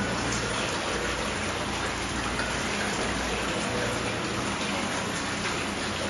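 Steady hiss of falling water, with a faint low hum underneath.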